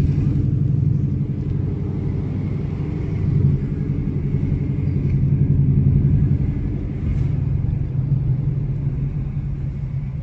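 Ford Mustang being driven: a steady engine drone with road rumble, swelling slightly a few times as it goes.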